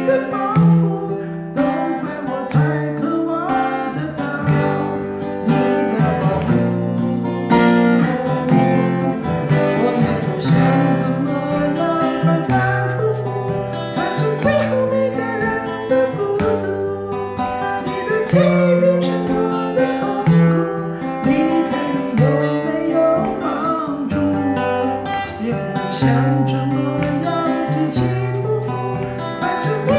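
Steel-string cutaway acoustic guitar played fingerstyle: picked chords over a bass line that moves about once a second, continuous throughout.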